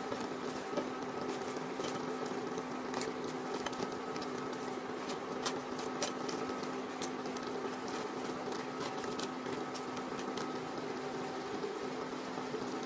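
Crab pieces in coconut milk simmering in a wok, with many small pops and clicks throughout, over a steady hum. About halfway through, a spatula stirs the crab shells.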